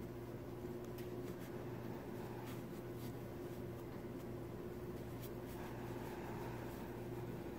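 Crochet hook working yarn in single crochet stitches: faint scratchy clicks and rustles over a steady low hum.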